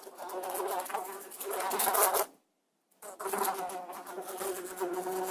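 A fly buzzing in flight, a steady droning hum that swells and fades as it moves. The buzz cuts out completely for about half a second a little past two seconds in, then starts again.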